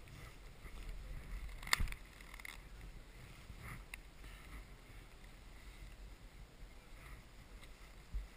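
Low rumbling handling and wind noise on a helmet camera's microphone, with a sharp click a little under two seconds in and a few fainter clicks and a soft thump later, as gloved hands work at the front of a ski jacket.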